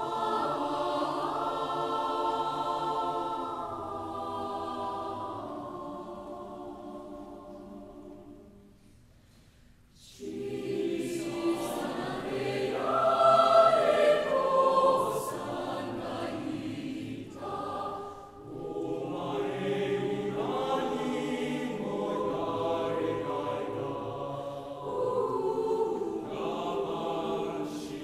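Mixed choir of women's and men's voices singing a slow, calm piece. A held chord fades away over the first nine seconds, there is a brief pause, then the voices come in again and swell louder, going on in phrases.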